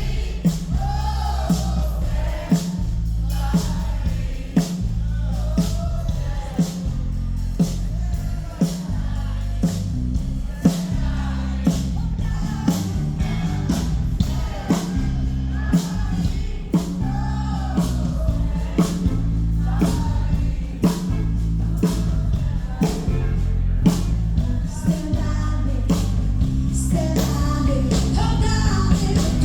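Live band with a lead singer, with drums keeping a steady beat of about two hits a second under heavy bass, recorded on a phone.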